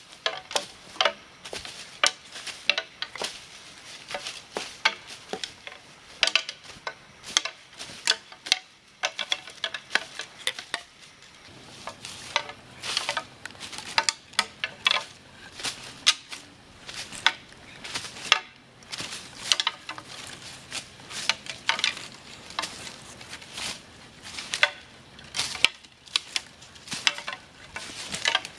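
A pair of natural deer antlers on a rope, dangle-rattled: lifted and dropped so the tines clack together and knock on dry leaf litter, giving irregular sharp clacks with leaf rustling between them. It is a rattling call meant to imitate two bucks sparring.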